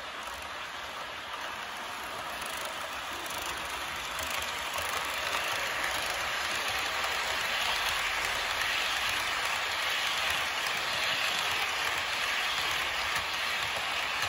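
H0-scale model freight train of Märklin container wagons rolling along curved track: a steady rolling hiss of small wheels on the rails. It grows louder about four seconds in as the wagons pass close by.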